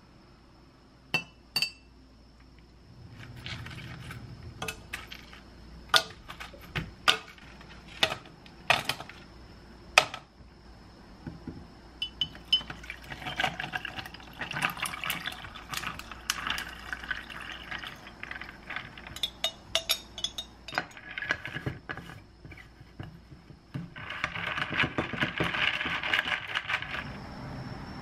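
A spoon clinks twice against a glass mason jar, then a run of sharp clinks of ice against glass. Iced tea is then poured from the jar over ice in a tumbler in two long pours, with ice clinking in between.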